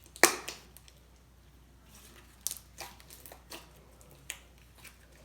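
Slime being stretched and squished in the hands, making sharp pops and clicks: one loud pop just after the start, then a scattering of smaller clicks in the second half.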